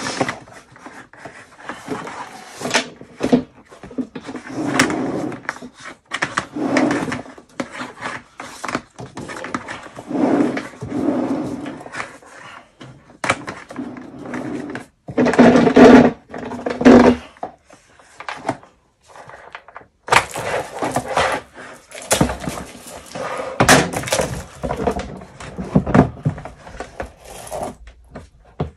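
Plastic drum of a Ridgid K9-204 drain cleaning machine being handled: irregular knocks, scrapes and thuds as the flexible shaft is coiled by hand inside it and the plastic cover is fitted back on.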